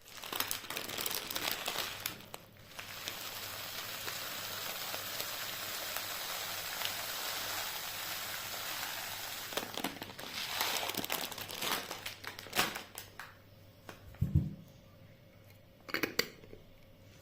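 Packaging being handled and crinkled: rustling at first, then a steady hiss lasting several seconds, then crackling clicks, a soft thump and a few last crinkles near the end.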